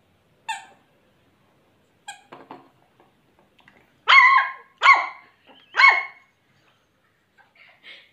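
Shih Tzu puppy barking in play at a toy ball: a short high yip about half a second in, then three loud barks about a second apart from about four seconds in.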